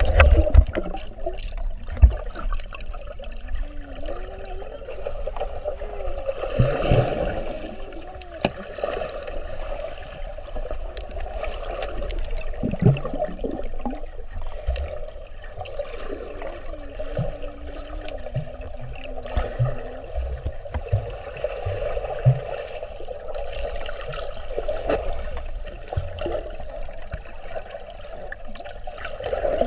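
Muffled underwater sound from a camera held beneath the surface of a swimming pool: water moving and bubbling, with occasional low thumps.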